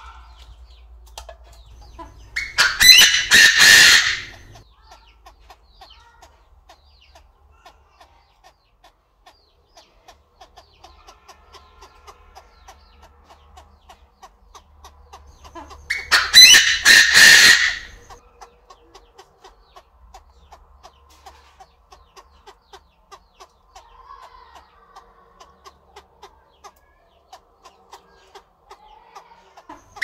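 Chinese francolin calling: two loud harsh call phrases of rapid repeated notes, each about two seconds long, one a few seconds in and one just past the middle.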